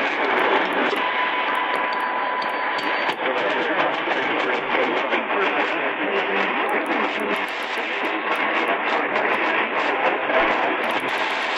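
Sangean ATS-909X2 portable radio's speaker playing AM medium-wave reception while being tuned up the band: static and hiss with indistinct station audio. A steady whistling tone sounds for about two seconds near the start.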